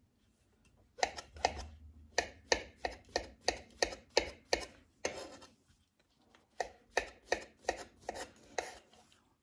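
Kitchen knife slicing button mushrooms on a plastic cutting board: a quick run of cuts, about three a second, each a sharp tap of the blade through the mushroom onto the board, with a short pause about halfway.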